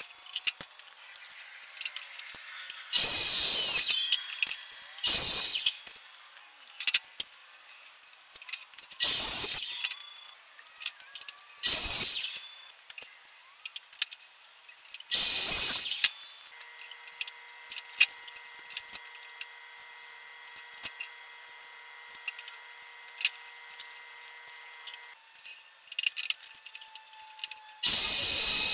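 Sliding compound miter saw making a series of short cuts through crown molding, each about a second long, with clicks and clatter from the molding being handled between cuts.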